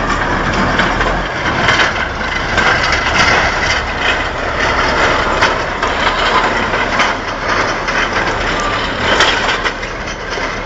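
Crawler pipelayer (sideboom tractor) carrying a large steel pipe, sliding and tumbling down a dirt slope: a loud, continuous clatter of engine, tracks and churning earth with scattered sharp cracks.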